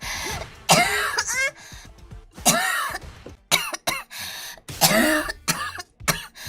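A girl coughing again and again: about seven harsh coughs in short bouts, roughly one a second, some with a rough voiced edge like throat clearing.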